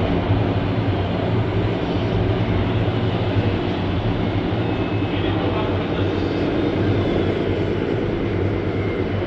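Steady low mechanical drone, like an engine running continuously, with a dense background hiss.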